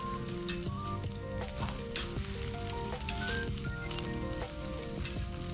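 Meat sizzling on a grill grate over an open fire, with irregular sharp crackles, under background music with a simple stepping melody.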